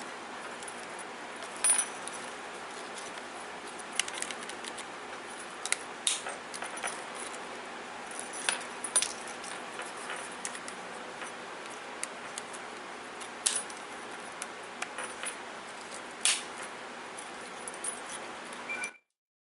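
Handling noise from a 2016 Kia Optima key fob and its metal key: irregular plastic clicks and metal clinks over a steady hiss, stopping abruptly near the end.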